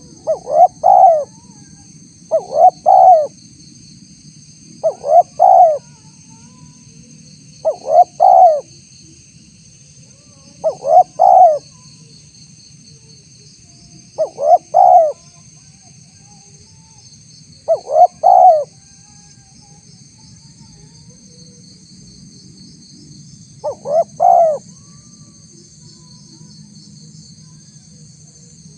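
Spotted dove cooing: a short, loud phrase of a few notes, repeated eight times, at first every two to three seconds and then with longer gaps, the last after a pause of about five seconds.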